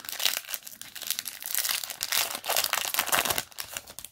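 Foil trading-card booster pack wrapper crinkling and crackling as it is handled and opened, a dense, continuous rustle that stops suddenly near the end.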